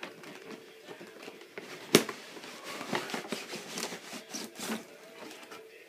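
Cardboard and plastic packaging of a box set being handled: irregular rustling and small clicks, with one sharp knock about two seconds in.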